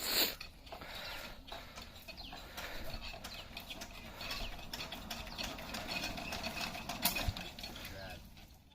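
Old sewing machine running with a rapid mechanical clatter of needle-bar and feed clicks. A louder knock comes right at the start and again about seven seconds in.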